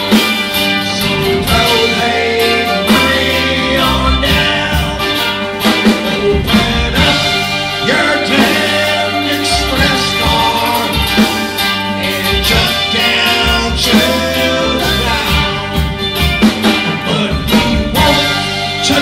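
Live three-piece rock band playing a song: guitar, bass guitar and drum kit, with drum hits throughout.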